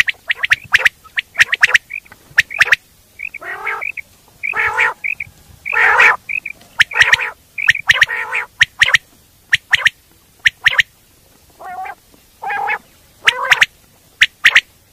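Common quail calling: a string of sharp clicking notes and short high notes, broken by several longer, harsher calls, repeated irregularly.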